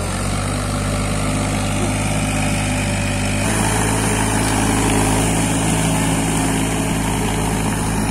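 Farm tractor's engine running steadily as it drags a levelling board through flooded paddy mud, its sound shifting and growing a little louder about halfway through.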